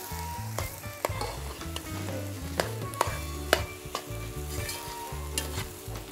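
Rice frying in a heavy black pot, sizzling steadily while it is stirred, with a metal ladle scraping and clicking against the pot several times.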